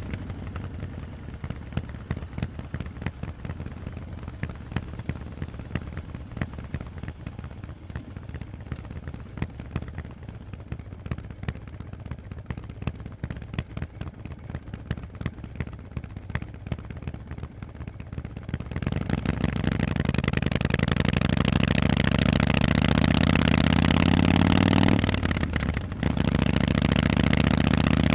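Harley-Davidson Forty-Eight's 1200 cc V-twin through loud Vance & Hines exhausts, ticking over at idle with an uneven beat. After about nineteen seconds it pulls away, the note climbing as it accelerates, with a brief drop near the end as it shifts gear before pulling again.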